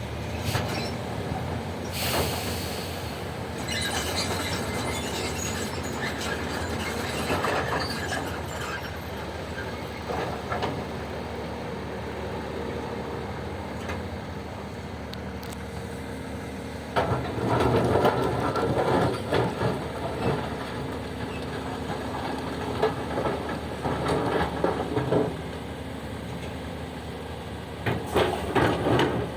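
Heavy diesel machinery at work: an engine running steadily under metallic clattering and squealing, which grows busier and louder about two-thirds of the way through and again near the end.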